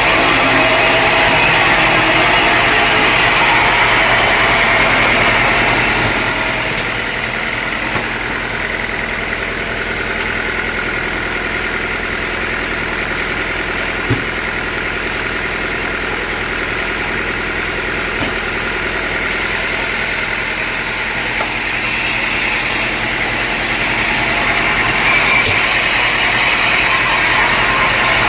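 Sawmill machinery running steadily, louder for the first six seconds and again near the end, with a single sharp knock about halfway through.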